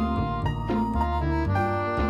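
Background music: a bouncy instrumental tune with keyboard-like notes over a bass line, changing note about every quarter to half second.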